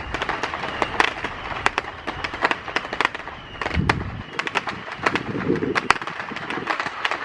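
Fireworks going off: a rapid, irregular string of sharp pops and cracks, several a second.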